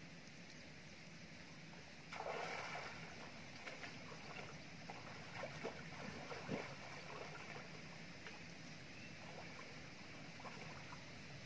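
Faint water sloshing and splashing as a man wading shoulder-deep in a stream ducks under the surface, with a short louder splash about two seconds in followed by small scattered drips and splashes over a steady background hiss.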